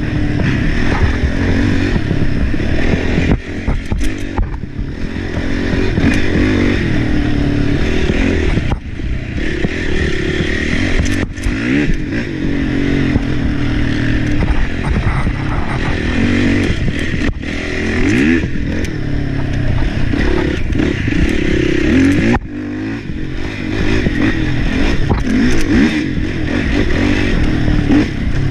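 Race ATV engine running hard, its pitch rising and falling with the throttle, with several brief drops when the throttle is shut off. The machine clatters and knocks over the rough trail.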